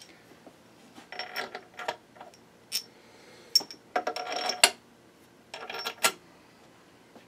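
Small steel bolts clinking and rattling against the aluminium case of a Tuff Torq K57R hydrostatic transmission as they are set into place, in four short spells of metallic clicks with a few sharp rings.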